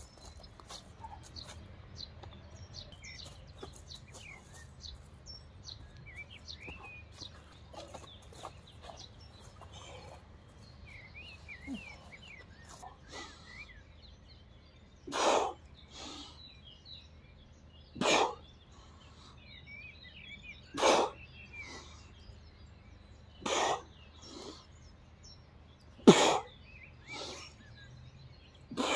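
Sharp, forceful breaths out from a person exercising, one roughly every three seconds from about halfway through, in time with strength-exercise reps. Small birds chirp faintly in the background, mostly in the first half.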